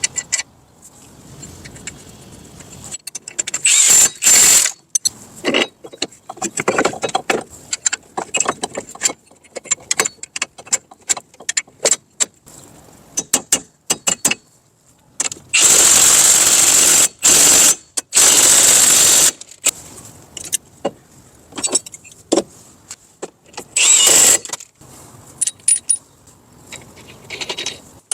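Metal tools at work reassembling a PT Cruiser's front wheel hub and knuckle: many sharp clicks and clanks, with several loud noisy bursts of one to three seconds, the longest in the middle.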